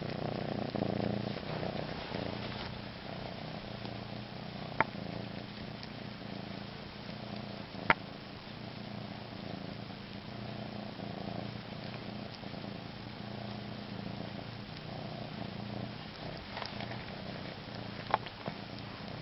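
Domestic cat purring steadily as it suckles on its own body, with three short sharp clicks scattered through.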